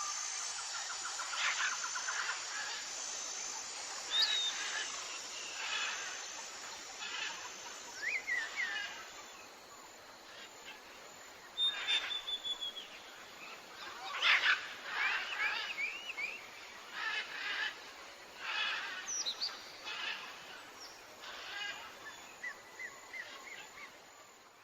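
Several wild birds calling: scattered short chirps, whistled notes and rising and falling trills, over a steady background hiss. An insect's high, pulsing trill runs through the first half.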